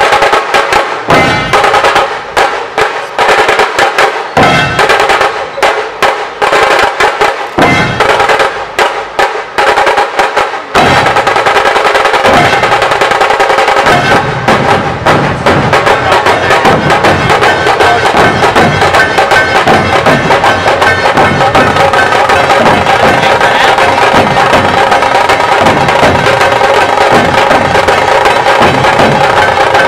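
Dhol-tasha ensemble drumming: large dhol drums beaten with sticks, with tasha drums rattling over them. For about the first eleven seconds the beats come in short phrases broken by brief pauses, then the whole group breaks into a continuous fast, loud rhythm.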